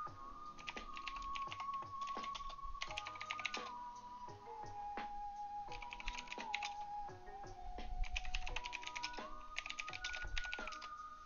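Typing on a computer keyboard in three quick spells of rapid key clicks, over background music with a sustained melody.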